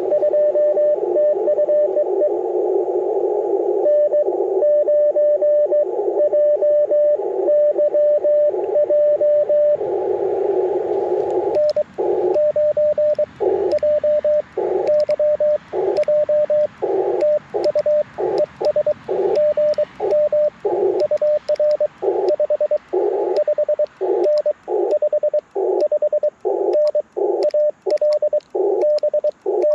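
Morse code (CW) from an Icom IC-705 ham radio transceiver: a single steady tone keyed into dots and dashes. For the first ten seconds the tone sits over a narrow band of receiver hiss. After a brief stretch of hiss alone, the keying continues with silent gaps between the elements.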